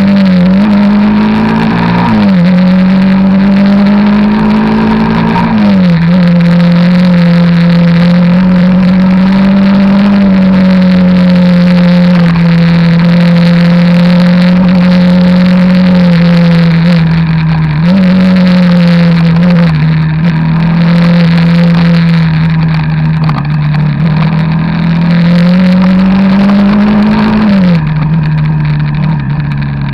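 Engine of an off-road vehicle, heard onboard while riding: a steady cruising note whose revs climb and then drop sharply at gear changes, about four times.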